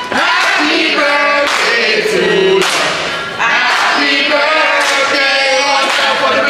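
A group of restaurant waiters and waitresses singing together in unaccompanied chorus, with hand claps keeping a beat about once a second.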